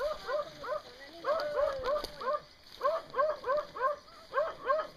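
A dog barking over and over in quick runs of three or four barks, with short pauses between the runs.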